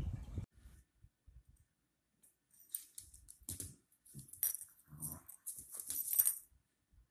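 Small dog growling and whining in short bursts as it scuffles with a bearded dragon, with scratchy, clicking scrabbles on a wooden floor, starting about three seconds in.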